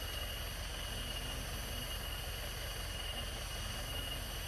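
Engine of a modified 1980s Hardtop jeep running with a steady low rumble.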